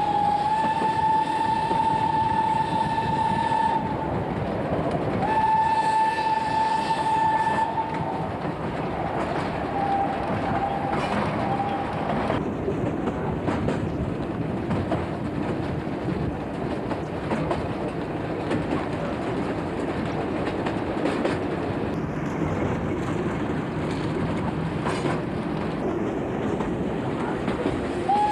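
Narrow-gauge steam locomotive's whistle blowing for a level crossing: two long, steady blasts on one note, then a fainter, lower one about ten seconds in. After that, the train's carriages running along the track with a steady rattle and clatter.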